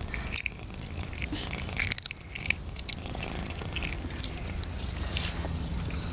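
A cat biting and chewing a small catfish: scattered irregular crunches and clicks of teeth on the fish.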